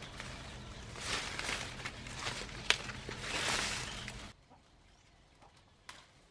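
Mango leaves and branches rustling as hands pull through the tree to pick green mangoes, with a few sharp clicks of stems and twigs. The rustling stops abruptly about four seconds in, leaving a quiet stretch with one more faint click.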